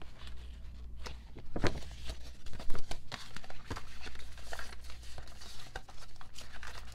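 Paper and thin plastic rustling and crinkling as the contents of a K-pop album are handled, with irregular small taps and clicks and one sharper crackle a little under three seconds in.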